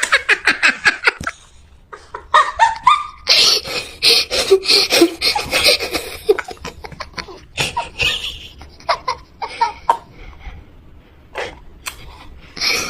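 Young children laughing in fits of rapid, breathy bursts, with short pauses between fits, thinning to scattered giggles near the end.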